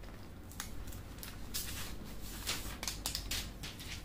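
Thin plastic protective film on a new smartphone crackling and rustling as the phone is handled and turned over, in a quick run of short crackles.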